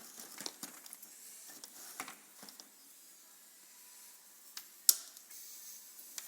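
Light handling noises: scattered clicks and knocks, with one sharp click about five seconds in.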